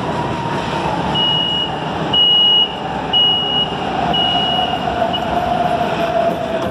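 Metro train in motion, its traction motor whine falling steadily in pitch as the train slows into a station, over the rumble of the running train. Four short high warning beeps, about one a second, sound in the middle.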